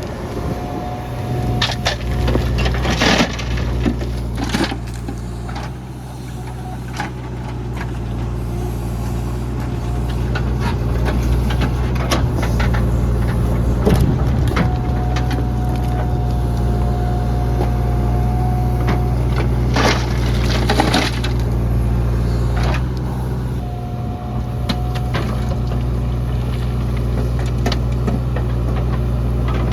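JCB 3DX backhoe loader's diesel engine running steadily under load, with scattered knocks and crunches as the bucket digs and dumps mud. A higher whine comes and goes over the engine.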